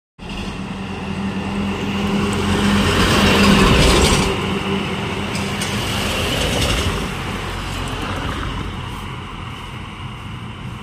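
Loaded lorry's diesel engine and tyres passing close by: engine hum and road noise build to a peak about four seconds in, then fall away into lighter passing traffic.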